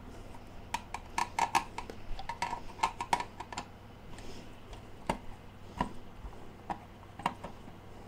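Screwdriver backing screws out of a sheet-metal switching power-supply housing: a quick run of small metallic clicks and clinks, then a few single clicks spaced out.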